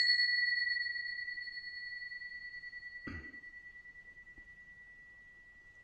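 A small bell rings out after a single strike, one clear high tone with a fainter overtone fading away slowly over about six seconds. A soft bump sounds about three seconds in.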